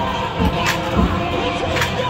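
Marching band music with held notes and a sharp percussion hit about once a second, over crowd chatter.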